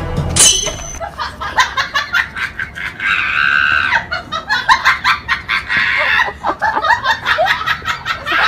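Music cuts off with a sharp hit about half a second in. People laughing follow, in quick short bursts, with a high-pitched shriek about three seconds in.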